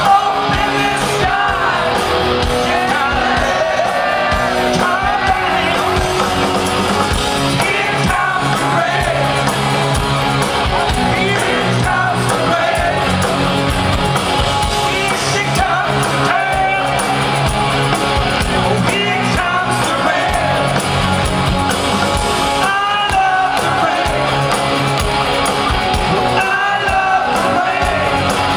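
Live rock band playing at full volume: electric guitar, bass and drums with a male lead vocal singing over them.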